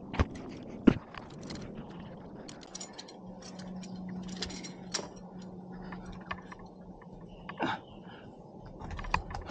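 A lead climber moving on rock: scattered sharp clicks and scrapes of hands and shoes on the holds and climbing gear clinking on the harness, the loudest click about a second in.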